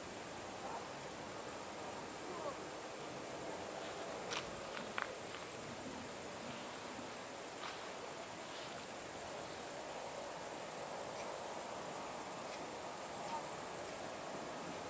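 Crickets singing in a steady, unbroken high-pitched trill, with a couple of faint clicks about four to five seconds in.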